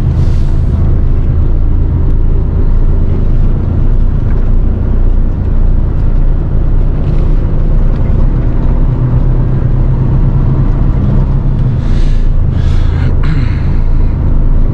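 Cab interior of a Mercedes-Benz Actros 510 hp articulated truck on the move: the straight-six diesel running with a steady low drone under road noise. A few short hissy sounds come near the end.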